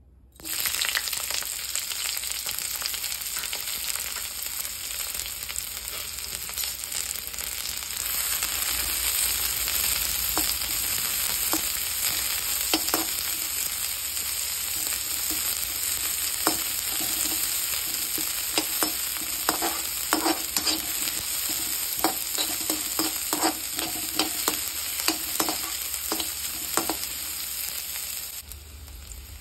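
Sliced onions sizzling in hot oil in a metal kadai. The hiss starts suddenly as they drop in, then runs on steadily while a perforated metal spatula scrapes and clicks against the pan as they are stirred.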